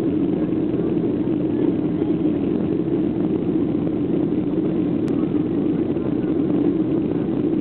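Steady cabin noise inside a Boeing 737 airliner descending on approach to land: a constant low drone of the jet engines and rushing air.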